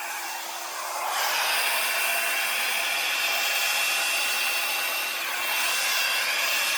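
Hair dryer running, a steady rush of air with a thin high whine, growing louder about a second in.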